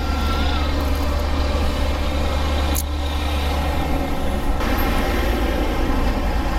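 Vehicle engine idling with a steady low rumble, and a short hiss about three seconds in.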